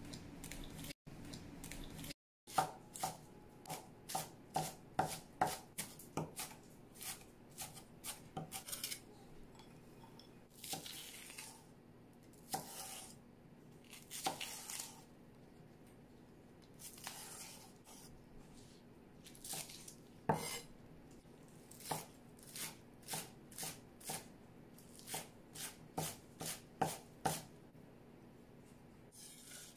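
Chinese cleaver chopping scallions on a bamboo cutting board: sharp knife strikes in quick runs, several a second, with short pauses between runs.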